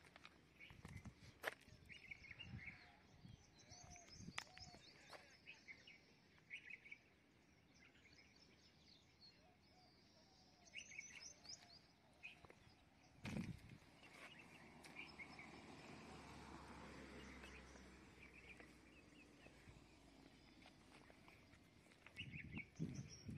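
Faint outdoor ambience: small birds chirping in short bursts every few seconds, with a few soft low thumps and a faint low swell of noise for several seconds past the middle.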